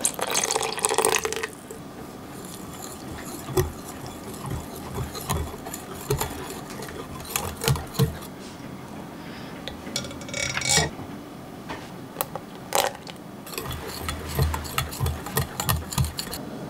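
Milk pouring into a glass measuring jug of thick cream cheese mixture for about a second and a half, then a wire whisk stirring it, clinking and tapping against the glass, in quick clusters near the end.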